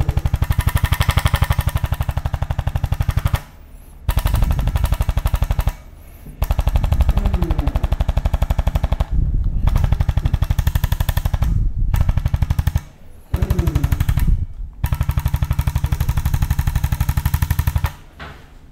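Handheld percussion therapy device (massage gun or shockwave applicator) firing rapid, evenly spaced pulses. It runs in bursts of one to three seconds with short breaks between them.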